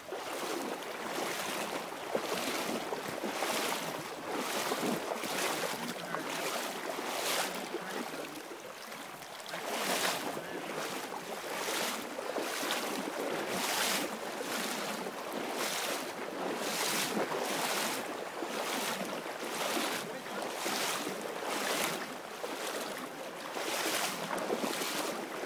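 Rushing river water, a steady noisy rush with wind buffeting the microphone, pulsing about twice a second.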